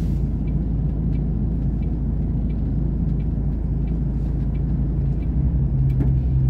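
Heavy truck's diesel engine running at low speed, heard from inside the cab as a steady low hum that grows a little louder near the end. A faint tick repeats about twice a second over it.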